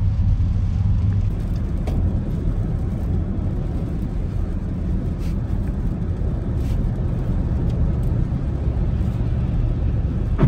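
Road noise inside a moving car on a rain-wet highway: a steady low rumble of tyres and engine.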